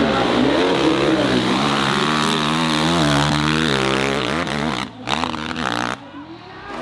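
Dirt bike engine revving hard under full load as it climbs a steep hill, its pitch rising and falling with the throttle. About five seconds in the engine sound breaks off and goes quieter.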